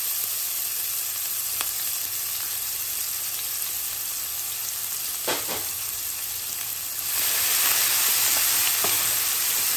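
Freshly added chopped onions sizzling in hot oil in an aluminium pot, a steady frying hiss. About seven seconds in the sizzle grows louder as a wooden spatula starts stirring the onions, with a brief knock a couple of seconds before.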